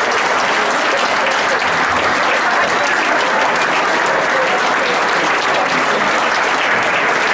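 A roomful of people applauding steadily, many hands clapping at once, with a few voices underneath.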